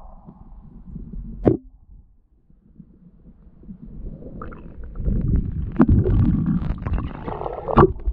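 Underwater noise picked up by a camera in a waterproof housing: low rumbling water movement, with a sharp knock about a second and a half in. After a short lull it turns into loud churning rumble with scattered clicks from about five seconds in.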